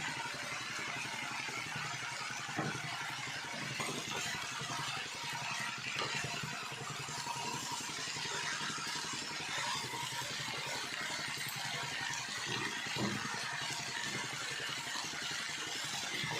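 Steady hiss and rumble of a dish cooking on the stove, with a few faint knocks of a utensil against the pan.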